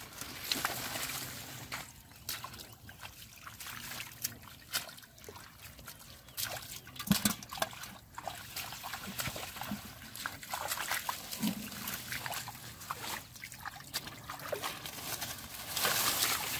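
Shallow muddy water sloshing and splashing as hands dig and feet wade through mud among water hyacinth. It comes as irregular, short splashes and squelches, the loudest about seven seconds in and near the end.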